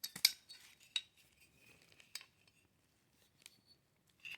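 Light metallic clicks and clinks of small AR-15 parts being handled as the magazine release is pressed and seated in the lower receiver: two sharp clicks at the start, then a few softer ones scattered through.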